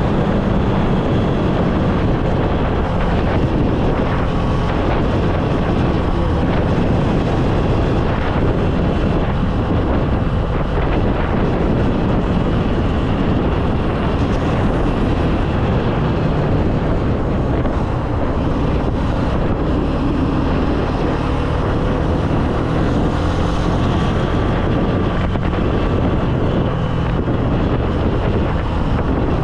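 Honda CB300F single-cylinder motorcycle engine running steadily while riding, with heavy wind noise on the microphone.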